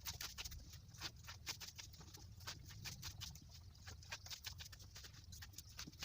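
Fresh leafy greens, pumpkin and amaranth leaves, being snapped and stripped by hand: quick, irregular crisp snaps and rustling, several a second.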